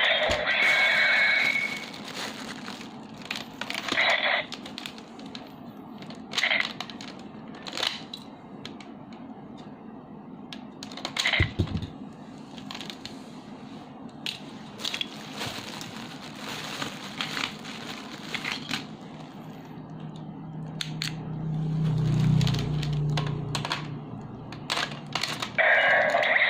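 Plastic clicks, knocks and handling noise from a DX Gaburevolver toy and its Zyudenchi battery pieces. The toy's electronic sound playback stops about two seconds in and starts again near the end.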